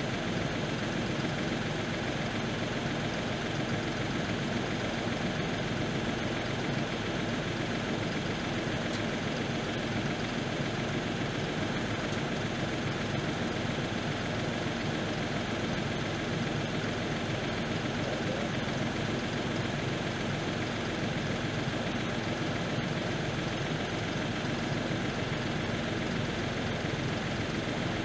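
New Holland compact tractor's diesel engine idling steadily.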